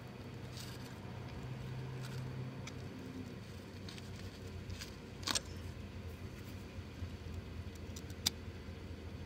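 Room tone with a low steady hum and scattered faint clicks, and two sharper clicks, about five and eight seconds in.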